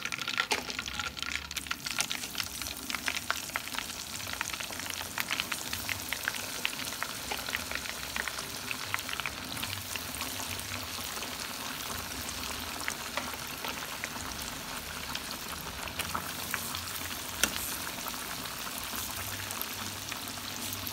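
Breaded chicken pieces deep-frying in hot oil: a steady, dense crackling sizzle, with one sharper click late on.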